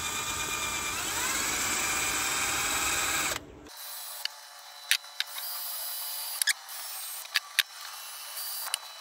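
Cordless drill boring a pilot hole into a snapped bolt in an engine cylinder head, as the first step before using a bolt extractor. It runs at a steady whine that rises in speed about a second in, then stops abruptly a little over three seconds in. A few sharp clicks follow.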